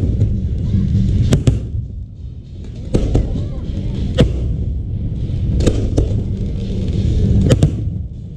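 Aerial fireworks going off: about ten sharp bangs at irregular intervals of a second or so, some in quick pairs, over a continuous low rumble and crackle, with a brief lull about two seconds in.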